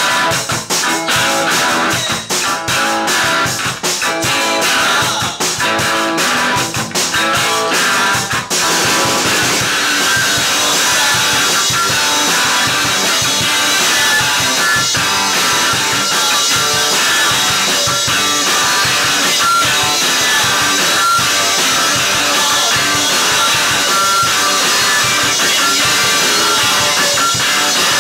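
Live rock band playing, with electric guitar and drums. The first several seconds are choppy stabs with short breaks between them; about a third of the way in, the band launches into a dense, continuous full-band passage.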